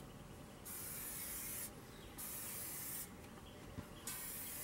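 Oil being sprayed onto the bare steel inside a BBQ smoker's cooking chamber to season it: three hissing bursts of about a second each, with short pauses between.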